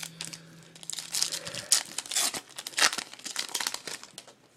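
Foil wrapper of a Topps Series 2 baseball card pack being torn open and crinkled: a run of irregular crackles lasting about two seconds.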